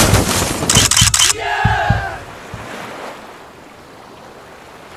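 Intro sound effects for an animated logo: a loud crackling burst with sharp clicks and low thumps, then swooping tones that fade out about two seconds in. A soft steady wash of surf follows.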